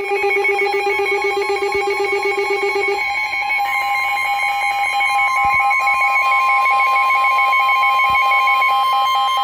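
Electronic alert tones opening a NOAA Weather Radio Emergency Alert System warning. A lower steady tone sounds for about three seconds, then a steady tone of about 1 kHz takes over, the weather radio's 1050 Hz warning alarm tone, with fainter pulsing tones above it.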